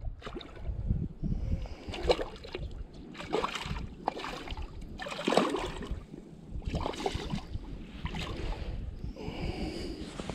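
Wind buffeting the microphone in uneven gusts, with a louder swell of rustling every second or two.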